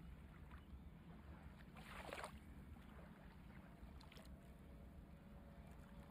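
Near silence: a faint low hum, with a brief soft rush of noise about two seconds in.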